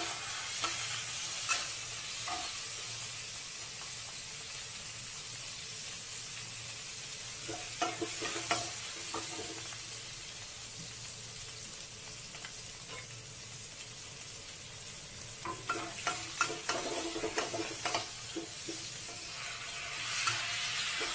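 Diced pork sizzling in oil in a wok, stirred with a metal spatula that scrapes and clinks against the pan in clusters of strokes. Near the end the sizzle grows louder as a bowl of sauce is poured in.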